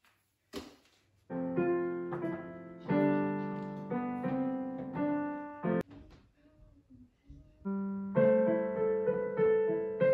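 Slow piano chords, each held and fading away, with a quieter lull in the middle before the chords return; the music cuts off suddenly at the end.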